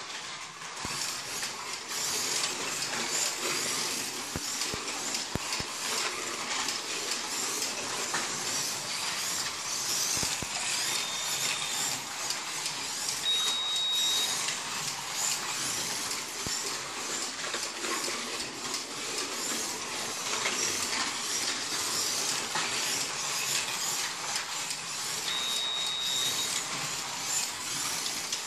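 A 1/24-scale slot car lapping a routed slot-car track: its small electric motor whirring and its tyres and guide hissing along the slot, the noise swelling and easing as it speeds up and slows. A short high whine stands out a few times.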